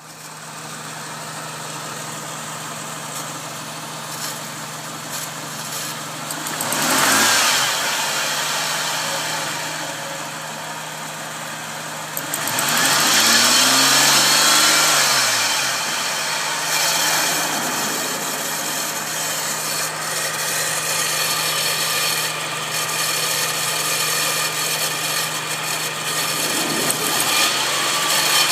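Supercharged Nissan VG33ER 3.3-litre V6 idling steadily, revved briefly about a quarter of the way in and again, longer, about halfway through, the pitch rising and falling back each time. It is the engine of a 2002 Xterra with a strange under-hood noise that the owner suspects comes from its Eaton M62 supercharger.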